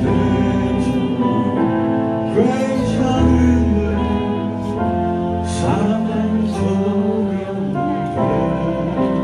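A male vocalist singing live with a band of electric guitars and drums, over held chords.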